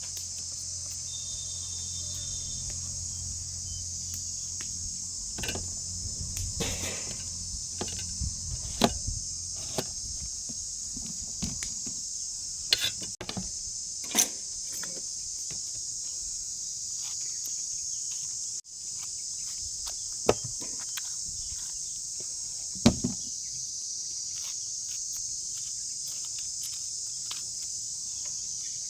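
Steady high-pitched insect chorus throughout, with scattered light knocks and clicks every few seconds.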